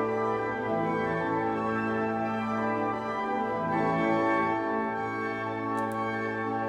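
Pipe organ playing slow sustained chords over a held low bass note, the chords changing every second or so.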